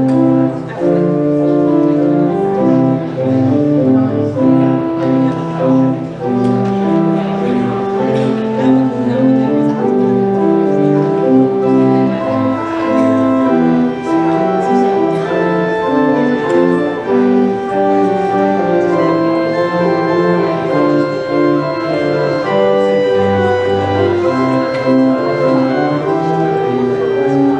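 Pipe organ playing, several lines moving together in held notes that change pitch every half second or so.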